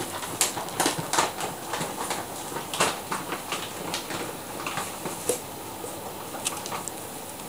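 A Labrador puppy's claws clicking and scrabbling on a tiled floor as it moves about and plays. The taps are quick and irregular, densest in the first three seconds and sparser after.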